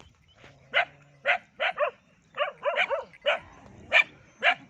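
Dog barking, about a dozen sharp barks in quick succession, some in fast pairs.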